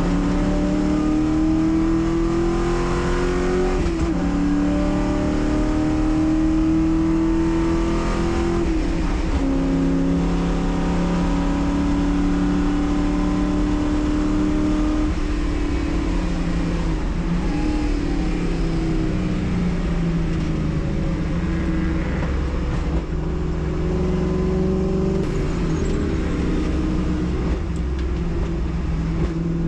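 Race car engine running hard on track: its pitch climbs and drops sharply at each upshift, three times in the first fifteen seconds. It then winds down as the car slows and climbs again under acceleration near the end.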